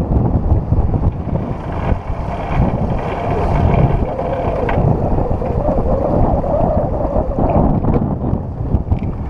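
Wind buffeting the microphone aboard a sailing yacht under way, a loud, uneven rumble.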